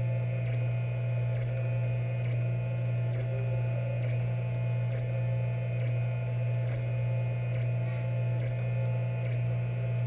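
3D printer running mid-print: a steady low hum with faint recurring ticks and a slight rhythmic rise and fall.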